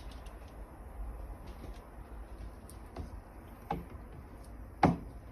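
Light taps and clicks from handling paint-mixing containers, with one louder knock near the end.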